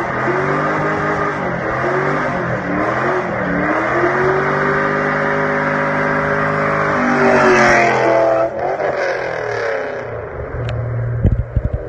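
Car engine revving hard during a burnout, its pitch wavering up and down and then held high. It climbs sharply about seven seconds in, drops off about a second later and settles lower, with a few knocks near the end.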